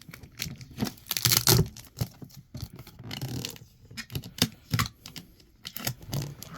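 Packaging being handled and torn open by hand: a string of clicks and scratches, with a louder tearing rasp about a second in.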